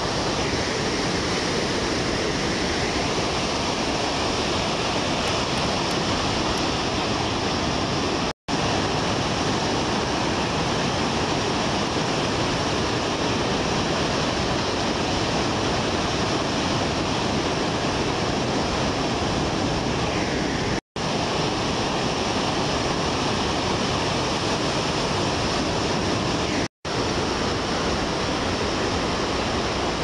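Ocean surf breaking on a beach: a steady wash of waves, cut off for a split second three times.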